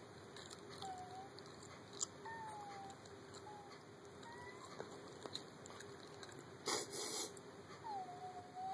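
A young boy whimpering and starting to cry, in thin, high, wavering whines that rise and fall, on hearing that his Halloween candy has been eaten. A brief noisy rush about seven seconds in is the loudest moment.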